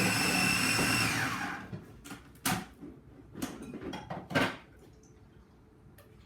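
Electric blender blending hummus: its motor whines steadily, then is switched off about a second in and winds down with a falling pitch. Three short, noisy knocks or scrapes follow.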